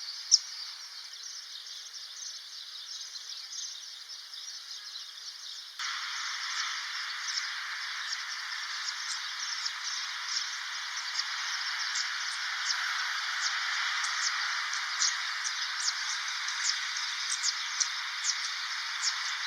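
A dense chorus of small birds chirping and twittering over a steady high hiss. Sharp, high chirps come several times a second, and the chorus gets suddenly louder and busier about six seconds in.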